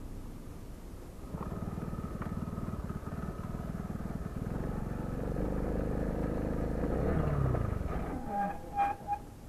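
Motorized bicycle's small petrol engine running under way. It picks up about a second in and revs higher, then drops away with a falling pitch near the end. Two or three short, high squeaks follow.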